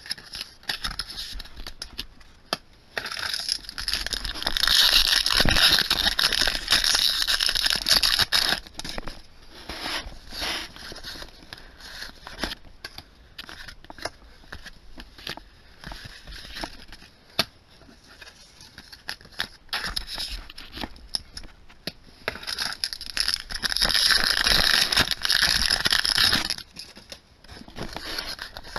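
Foil wrappers of trading-card booster packs crinkling and tearing open in two long stretches, about three seconds in and again past twenty seconds. Between them come small clicks and scrapes of the cards being handled and flipped through.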